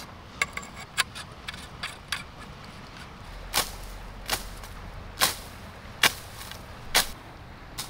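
A telescopic pole being extended. First a run of light clicks, then about six sharper swishing clacks, roughly a second apart, as the sections slide out and lock.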